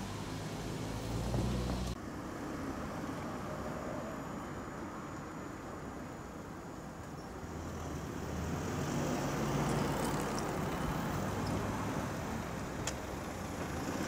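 Outdoor traffic noise with the low engine sound of a road vehicle, loudest about two thirds of the way through. The sound changes abruptly about two seconds in, when a low steady hum cuts off.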